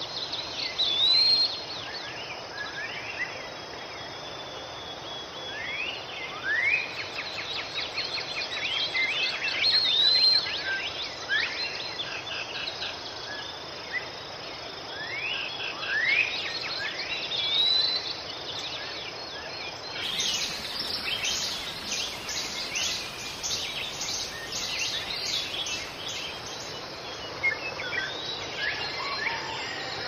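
Tropical forest ambience: birds calling, with repeated short upward-sweeping whistles and curling higher notes, over a steady bed of insect chirring. About twenty seconds in, a denser, higher insect chorus takes over.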